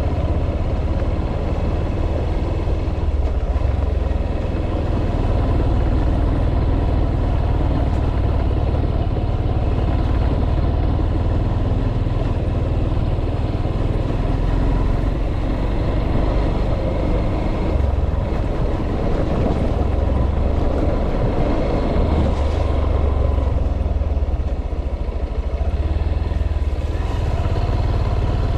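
Steady vehicle running noise: a continuous low rumble that keeps an even level throughout.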